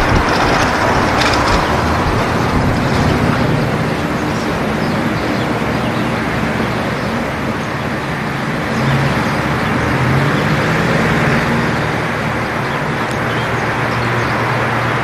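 City ambience: a steady hum of distant road traffic with a low engine drone that swells a little around nine seconds in.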